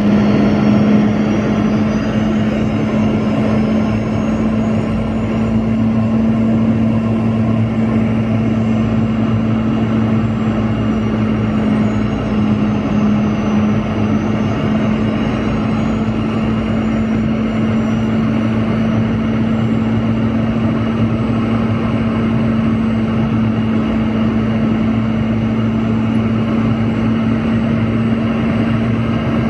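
Boeing 717's Rolls-Royce BR715 turbofan engines running steadily: a constant low hum under a broad rush of noise, with faint high whines that drift slightly in pitch.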